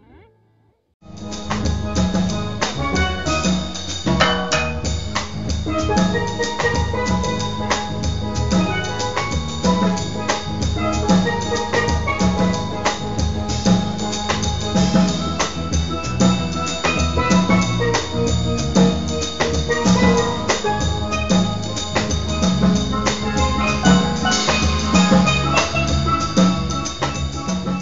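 Outro music with a steady drum beat under a pitched melody. It starts about a second in, after a brief silence.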